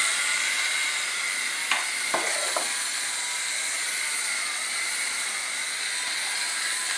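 Vacuum cleaner motor running steadily, a constant hiss with a faint whine, with a few light knocks about two seconds in.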